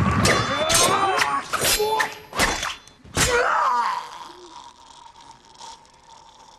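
Sword-fight sound effects: a quick run of sharp hits and slashes in the first three seconds, with men's groans and cries between them. After that it turns quieter, with a faint steady ringing tone.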